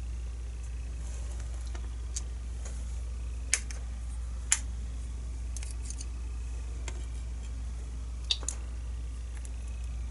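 Small sharp metal clicks and ticks of tweezers handling the pins and springs of a disassembled pin-tumbler lock core: a few scattered clicks, two louder ones in the middle. A steady low hum lies underneath.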